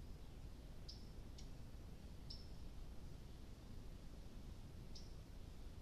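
Faint low hiss of a trail camera's recording, with four short high-pitched clicks spaced irregularly, one to three seconds apart.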